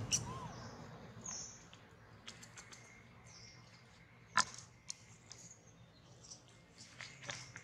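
Quiet outdoor background with faint, short high chirps and scattered sharp clicks, one louder click about four seconds in.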